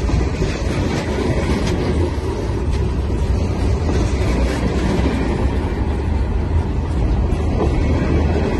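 Freight cars, tank cars and covered hoppers, rolling past: steel wheels on the rails making a steady, loud rolling noise.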